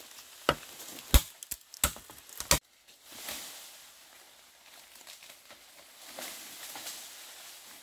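A blade chopping bamboo: four sharp strikes about two-thirds of a second apart. The chopping stops abruptly, leaving soft rustling and hiss.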